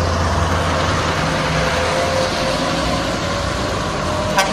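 Heavy trucks' diesel engines running as they drive along the road, a steady low engine sound.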